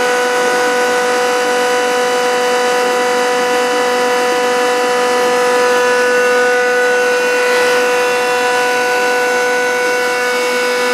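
Reverse-osmosis desalination unit running in production: its pumps and motors make a steady, loud drone with a clear, constant mid-pitched whine and higher overtones over a hiss.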